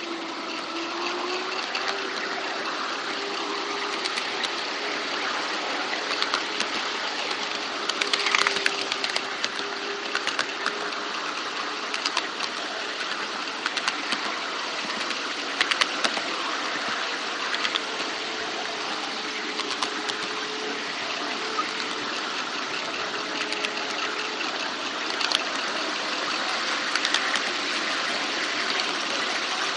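A 5-inch gauge model of the Western-class diesel locomotive D1065 running along the track: a steady motor whine that steps up a little in pitch about a second in, over a running hiss, with occasional sharp clicks from the wheels on the rails.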